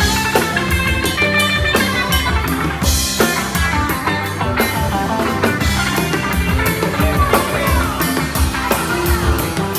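A live band playing an instrumental passage: drum kit, bass, electric guitar and keyboards through a PA, with a steady beat, heard as a raw phone recording.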